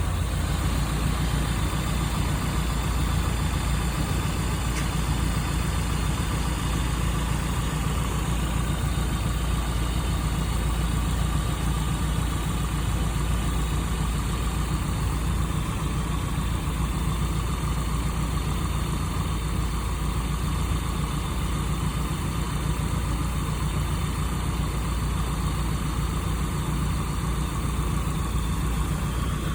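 1995 Nissan pickup's 2.4-litre four-cylinder engine idling steadily, with no lifter tapping after an oil-additive treatment.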